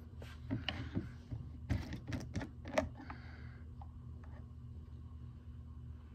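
A quick run of clicks and light knocks, objects being handled close to the microphone, for about the first three seconds, then only a steady low hum.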